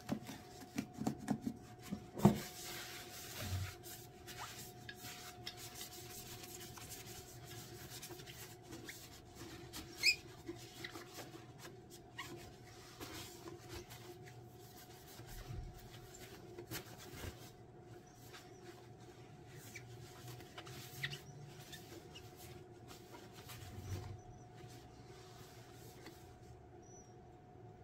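Paper towel wiped over a glittered tumbler with 91% rubbing alcohol, cleaning it before its final coat: faint, uneven rubbing and swishing. A few sharp clicks come through, the loudest about two seconds in and again about ten seconds in, over a faint steady hum.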